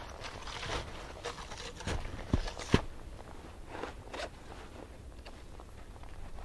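Footsteps crunching in snow, irregular and uneven, with two sharp snaps about two and a half seconds in, then lighter steps.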